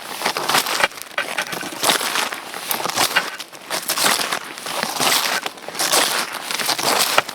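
Snowshoes crunching through snow at a steady walking pace, each step a crunchy, crackling stroke.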